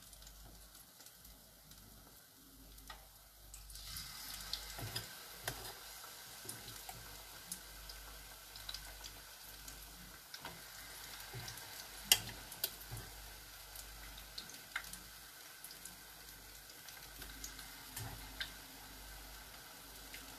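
Battered sweet potato deep-frying in hot oil: a steady sizzle that grows louder about four seconds in, with occasional sharp clicks.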